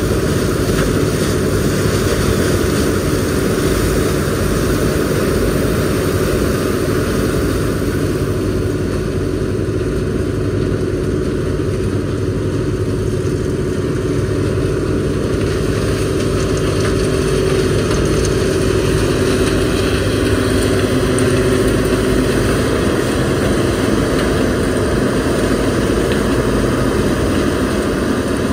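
CLAAS Mega 204 combine harvester running steadily while harvesting corn: a continuous engine and threshing-machinery drone with a constant held tone through it.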